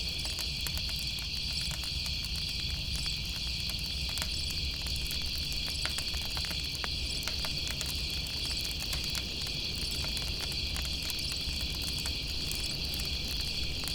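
A steady, continuous chorus of night insects chirring in a high band, with scattered small crackles and pops of a campfire throughout.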